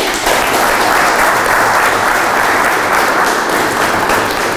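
A roomful of people applauding, with dense, steady clapping.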